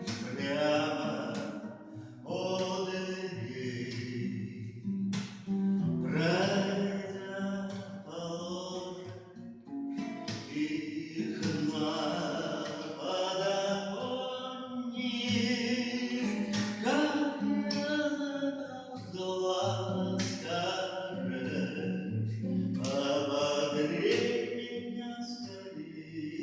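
A song: a voice singing a melodic line over guitar accompaniment, with held low notes underneath.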